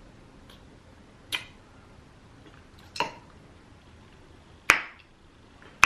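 Three sharp, short snaps about a second and a half apart, the third the loudest.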